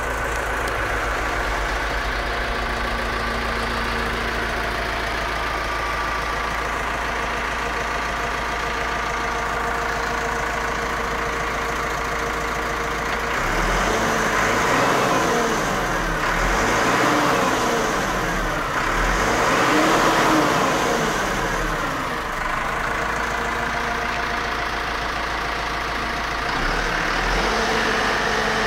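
Massey Ferguson 5445's four-cylinder diesel engine heard from inside the cab, idling steadily, then revved up and down three times about halfway through, and rising in revs again near the end.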